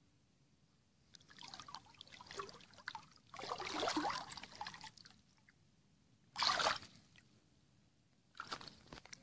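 Water sloshing and splashing in several bursts, loudest about three to five seconds in, as a large zander is held by hand in the water to revive it before release.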